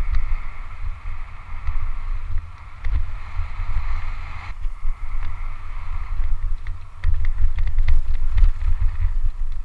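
Wind buffeting a bike-mounted action camera's microphone during a fast mountain-bike descent, a heavy gusting rumble, with clicks and rattles from the bike over the rough, rocky trail. A steady higher whirr runs under it for the first half and stops abruptly about halfway.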